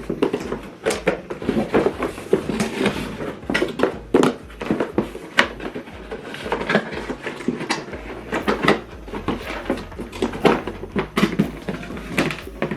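Hands handling small hard plastic items, giving irregular clicks, taps and knocks over a low steady hum.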